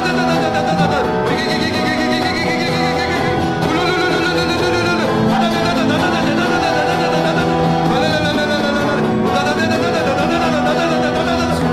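Worship music with long held chords. Voices waver over it in repeated syllables, which sounds like group prayer in tongues (glossolalia).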